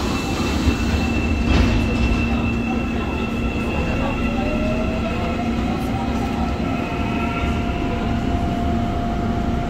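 Subway train on the next track pulling away past a stopped train, rumbling with the steady hum of its traction equipment and a tone that slowly rises about halfway through as it gathers speed.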